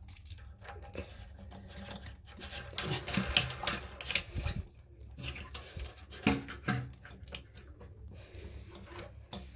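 Irregular rubbing, scraping and small clicks of toilet parts being fitted by hand, as nuts are turned onto the tank's bolts to tighten them.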